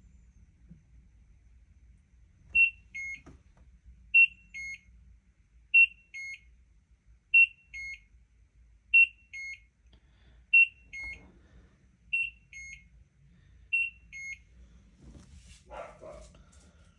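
LG Turbodrum WTR807 washing machine sounding its end-of-cycle signal: a short high beep followed by a falling two-note beep, repeated eight times at an even pace, marking that the wash programme has finished.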